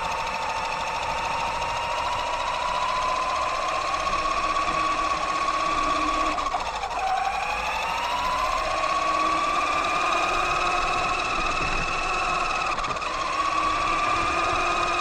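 Axial Yeti XL RC truck's electric motor and gear drivetrain whining as it drives. The pitch rises slowly with speed, drops sharply a little before halfway through as the truck slows, then climbs again.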